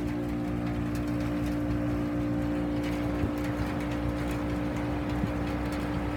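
Grand Aire heat pump's outdoor unit running steadily just after start-up: an even, constant hum from the compressor and fan, with no change in pitch.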